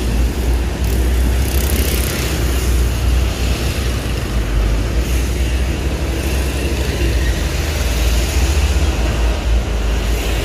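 Chainsaw running steadily, cutting through the tree's limbs.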